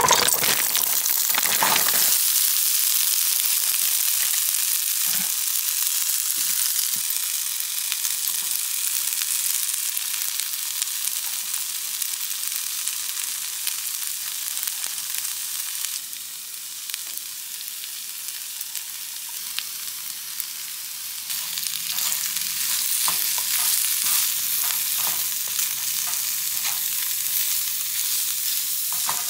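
Frozen diced potatoes and sliced onion sizzling in hot oil in a nonstick frying pan. The sizzle is loudest as the potatoes drop in at the start, and a plastic spatula scrapes and stirs them near the end.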